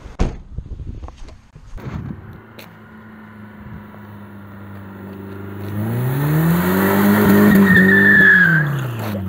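BMW saloon's engine revving hard as the car accelerates past, its note climbing over a few seconds and then dropping away, with a brief tyre squeal near the end.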